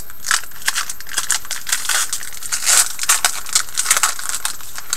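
Crinkling and tearing of a foil trading-card pack wrapper as it is opened and the cards handled: a quick run of short, crackly rustles.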